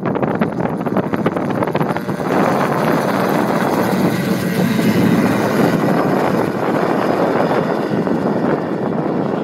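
Autogyro engine and propeller running at takeoff power as it rolls, lifts off and climbs away. It is loudest about two to six seconds in, as it passes closest, and then eases off a little as it draws away.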